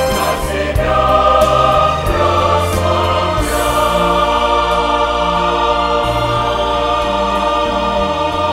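Mixed church choir of men's and women's voices singing a hymn, holding long sustained chords over a moving bass line.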